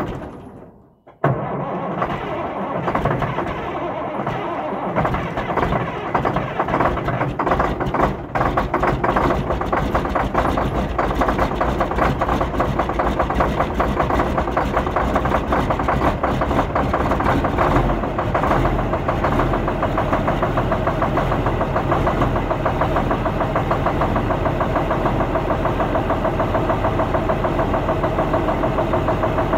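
Large farm engine running steadily with a knocking, rhythmic texture, coming in suddenly about a second in after a brief silence.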